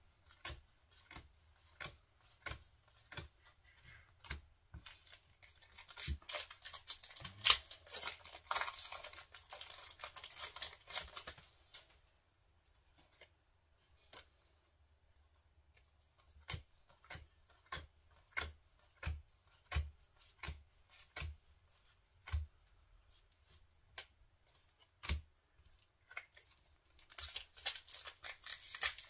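Pokémon trading cards flicked through one at a time, a sharp click roughly every half second or so. Twice a foil booster-pack wrapper is torn open and crinkled, about six seconds in and again near the end.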